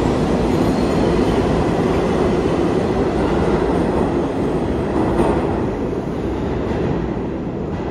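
New York City subway train running along a track through an underground station, a steady loud rumble of wheels and cars on the rails that eases slightly near the end as the last car goes by.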